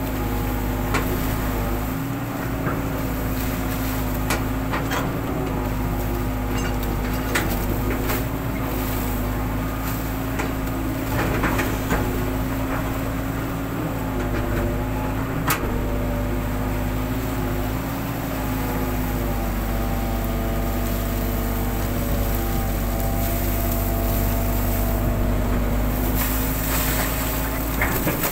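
Hitachi long-reach excavator's diesel engine running steadily while the boom and bucket work, its pitch dipping slightly now and then under hydraulic load, with scattered short knocks from the machine.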